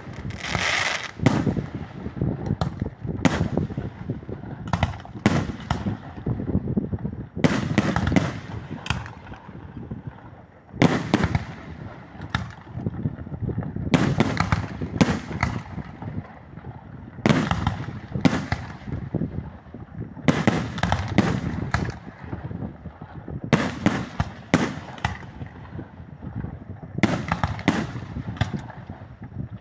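Fireworks exploding, one burst after another in quick, irregular succession, often several bangs close together with a low rumble between them.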